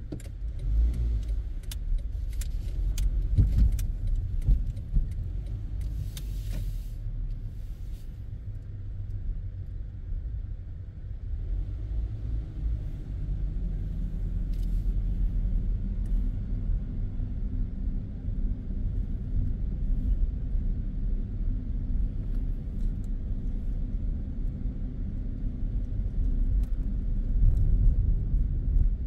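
Car driving, heard from inside the cabin: a steady low engine and road rumble that grows somewhat fuller from about twelve seconds in, with scattered clicks and rattles over the first eight seconds or so.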